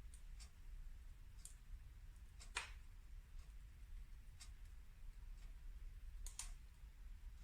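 Wood fire in a fireplace crackling quietly: a few scattered sharp pops, the loudest about two and a half seconds in, over a faint low rumble.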